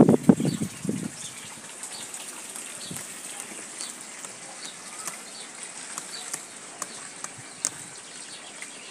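Small birds chirping here and there over a steady outdoor hiss, after a brief low rumble in the first second.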